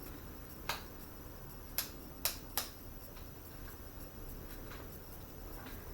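Four light, sharp clicks or taps in the first half, over a faint steady background hum.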